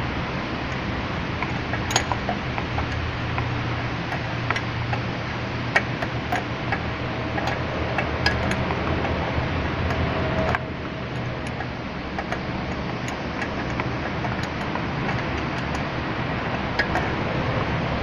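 Scattered light metallic clicks and taps of a wrench on the brake line fittings of the master cylinder, over a steady background hum.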